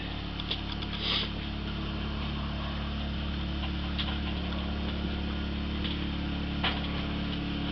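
A steady low electrical-sounding hum, with a short hiss about a second in and a few faint clicks.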